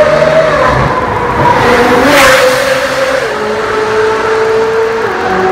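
Ferrari 458 Italia's naturally aspirated V8 through an Fi valved exhaust, a high-pitched engine note as the car drives past, loudest about two seconds in. Its pitch drops in steps as it pulls away.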